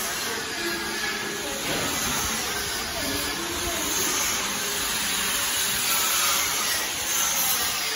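Steady hissing factory-floor noise from machinery, with faint distant voices coming and going.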